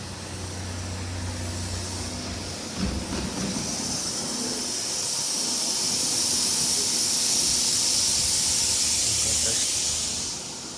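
Compressed air hissing steadily for about nine seconds. It grows louder through the middle and cuts off near the end, with a dull knock about three seconds in.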